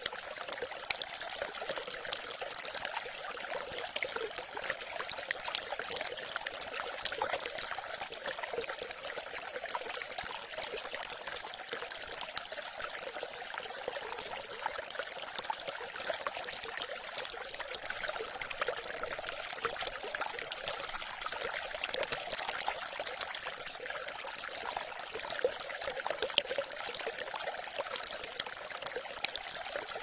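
Steady trickling of running water, even and unbroken.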